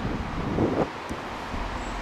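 Wind noise on the microphone over the low rumble of a distant approaching freight train, with a brief louder burst just over half a second in.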